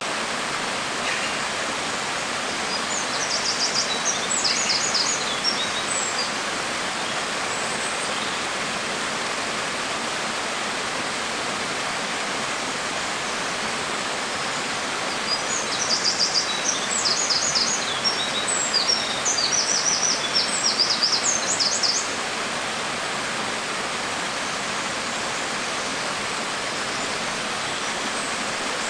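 Small waterfall splashing steadily into a rocky pool, a constant rushing of water. A bird chirps in quick runs of short high notes a few seconds in and again through the middle.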